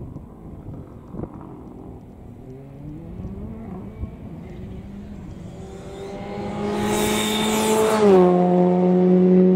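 Ford Fiesta R5 rally car's engine approaching at speed, faint at first, revs rising, then growing loud. A rushing hiss comes with it as it nears, and the engine note drops in pitch about eight seconds in as the car goes past.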